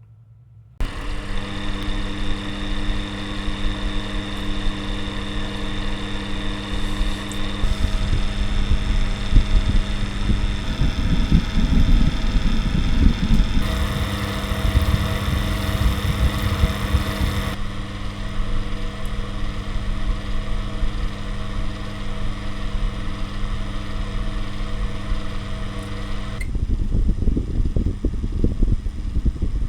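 Electric fan blowing straight at a lapel microphone: a steady motor hum under low, rumbling wind buffeting on the capsules. The amount of wind rumble changes abruptly every several seconds as the microphone is switched between its omni, cardioid, figure-of-8 and voice-focus polar patterns. The unprotected side capsules in the non-omni patterns pick up more wind noise.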